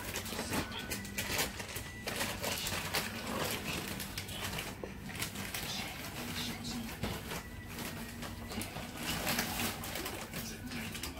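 A hamster scratching and rustling in wood-shaving bedding, with many small irregular clicks over a steady low hum.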